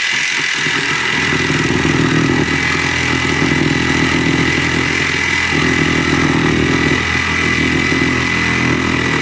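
Small electric jigsaw running continuously, its blade sawing through the wooden handle of a cricket bat: a steady high motor whine over a fast, even chatter of the reciprocating blade.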